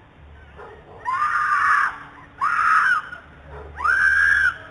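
A young woman screaming in the street, picked up by a doorbell camera's microphone: three long, high screams, the first about a second in, the last near the end.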